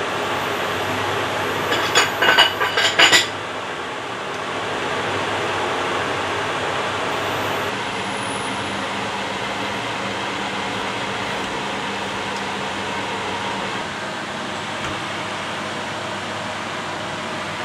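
Steady rushing noise of a pot of pasta water at a rolling boil on an induction hob, with a few quick metal clinks about two to three seconds in.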